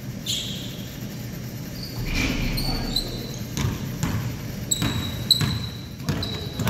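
Basketball bouncing on a hardwood gym floor and short high sneaker squeaks as players run the court, echoing in a large gym. The bounces and squeaks come mostly in the second half.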